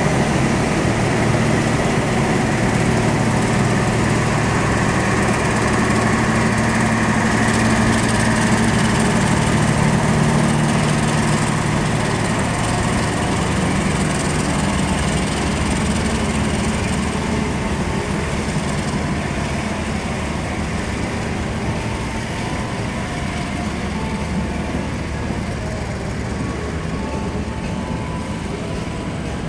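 Diesel-electric locomotive engine running under power as it pulls a passenger train away from the platform: a steady low hum that fades somewhat over the second half as the locomotive draws away.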